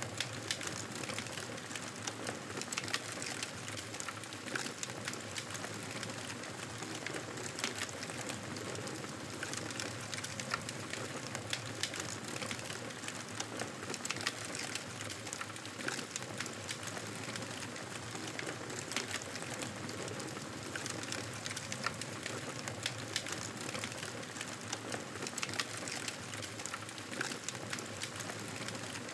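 Campfire burning: wood crackling and popping in irregular sharp snaps over a steady hiss.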